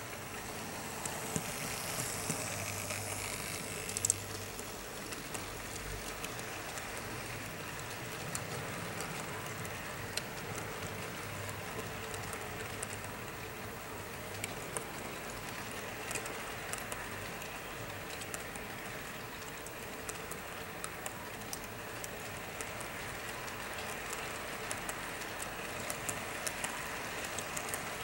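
TT-scale model train running past: a small electric motor's whine and hum from the Vectron locomotive in the first few seconds, then a long rake of container wagons rolling on the track with a steady rush and scattered small clicks.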